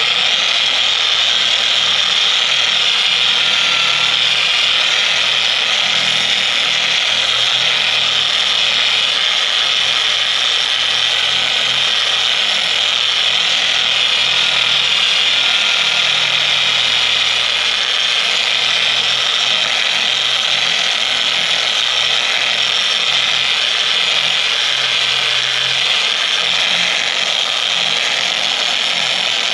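Corded dual-action orbital polisher with a foam pad running steadily, buffing a flat aluminum sheet.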